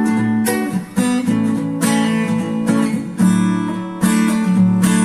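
Music: acoustic guitar strumming sustained chords, with a fresh strum every second or so.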